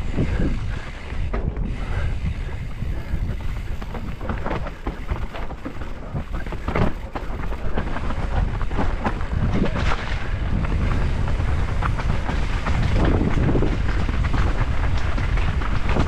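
Wind buffeting the microphone over a steady rumble of tyres on a rough dirt trail, with scattered short knocks and rattles from the ride over roots and rocks.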